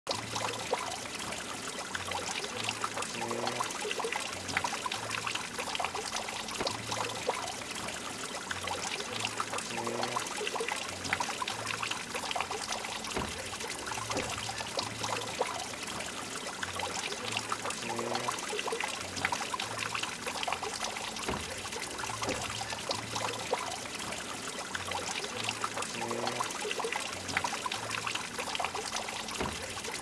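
Water trickling and pouring in thin streams off a mossy stone ledge: a steady running patter of many small splashes.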